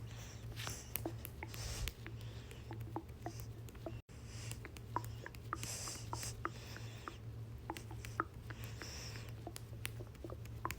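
Stomach gurgling: small irregular pops and bubbling clicks, mixed with brief scratchy rustles and a steady low hum underneath.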